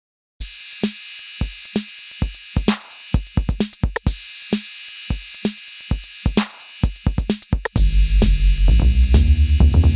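Electronic background music: a drum-machine beat with kick drum and hi-hats over a high synth shimmer, starting a moment in, with heavy bass and fuller chords coming in near the end.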